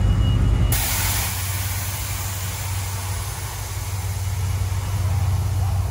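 A vehicle engine idling with a steady low hum. A steady hiss comes in abruptly under a second in.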